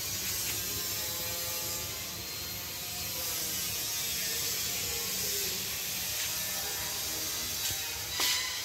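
Steady mechanical whirring with a strong hiss, and a single sharp click near the end.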